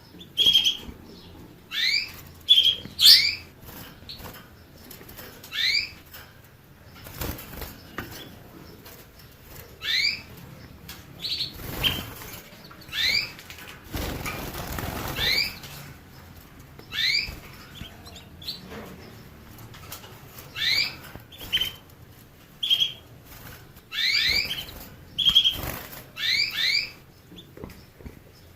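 Small caged finch giving short, rising call notes again and again, one every second or two, with a few flat notes in between. A stretch of rustling, like wing flutter, comes about halfway through.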